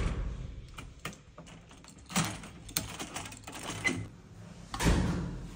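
Key turning in the lock of a metal entrance door, a run of clicks and rattles from about two seconds in, then a louder clunk near the end.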